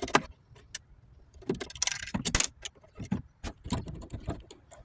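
Irregular metallic clicks, clinks and knocks of small metal parts and a hand tool as screws are undone to free small brass pieces from a battery charger's chassis.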